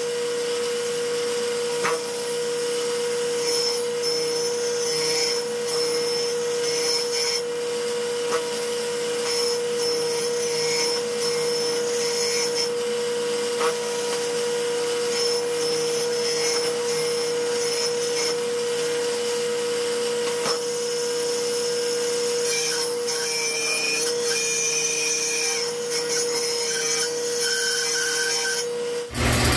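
Table saw running with a steady whine while its blade rasps a circular hollow into the underside of a thick wooden block that is turned by hand over it. The grinding of the cut swells and fades every second or two as the block turns.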